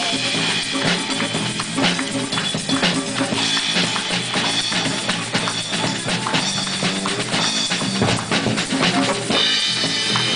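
Instrumental passage of a rock song: a drum-kit beat with bass drum and snare under sustained instrument lines, with no singing.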